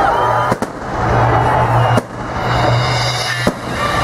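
Aerial firework shells bursting, three sharp bangs about a second and a half apart, with music playing underneath.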